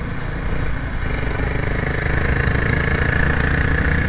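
Small motorcycle engine running at steady cruising speed with rushing road and wind noise, getting slightly louder through the second half.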